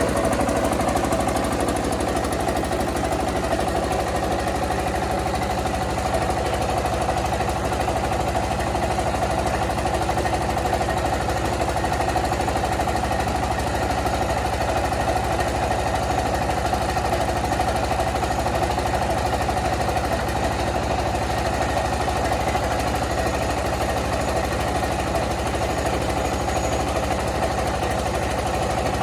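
Rice milling machine running steadily, a loud mechanical drone with a fast, even knocking pulse that holds unchanged throughout.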